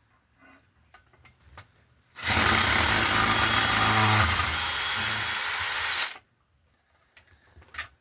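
Electric drill running in one burst of about four seconds, starting and stopping sharply, with a few small clicks before and after.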